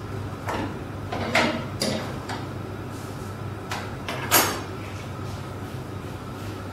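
Kitchen clatter of metal tongs knocking against a griddle and the gas stove's grate while rotis are turned: several short clinks and knocks, the loudest about four and a half seconds in, over a steady low hum.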